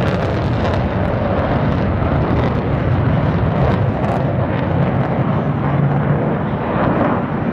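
Loud, steady jet noise from an F-14 Tomcat's twin engines as it flies past.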